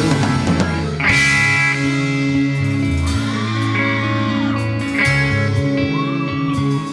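A rock band playing live, an instrumental passage between sung lines: an electric guitar holds long notes that slide up and are sustained, over bass and drums with cymbal strikes.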